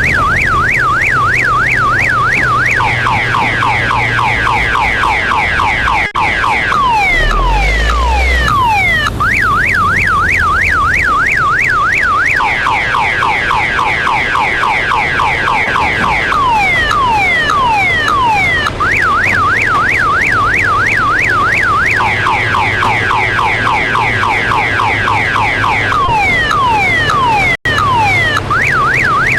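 Electronic multi-tone alarm cycling through its sounds: a fast up-and-down warble, then rapid falling chirps, then slower falling sweeps, each lasting a few seconds and repeating over and over. A steady low engine drone runs underneath.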